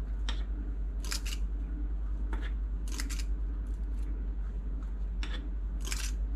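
Metal squeeze-handle scoop portioning cupcake batter into paper liners: a handful of short, sharp metallic clicks and scrapes at uneven intervals, as the scoop is dipped, squeezed and released.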